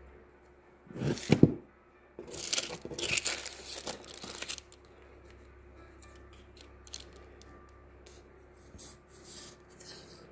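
Paper being handled on a craft table: a knock about a second in, then a couple of seconds of tearing and crinkling, and a few faint rustles and clicks later on.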